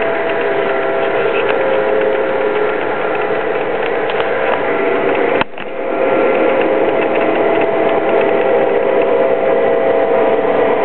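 Lionel Legacy F7 model diesel locomotives running on three-rail track: a steady whir of motors and gears, with wheels clicking over the rails and a steady drone. The sound drops briefly about five and a half seconds in.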